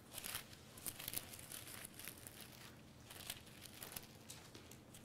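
Pages of a Bible being turned: soft papery rustles and crinkles that come at irregular intervals.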